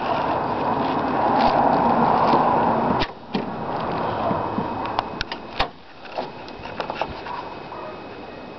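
A car bonnet being raised and propped open: rubbing and handling noise, then several clicks and one sharp knock a little past halfway, then a quieter hiss.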